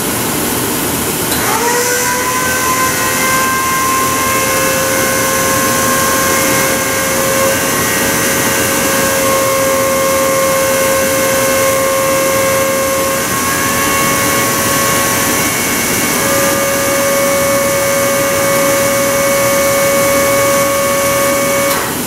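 Waste-oil-burning furnace running, its oil burner firing and its blower moving air with a steady rush. A steady whistling tone sets in with a short upward slide about a second and a half in, holds, and weakens briefly around the middle.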